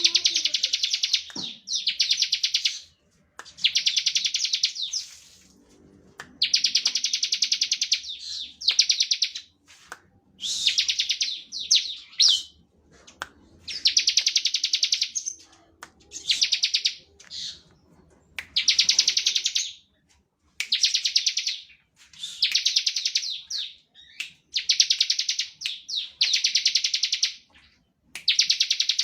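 Bar-winged prinia (ciblek) singing its rapid, drill-like buzzing trill ('ngebren') in repeated bouts of one to two seconds each, with short pauses between them.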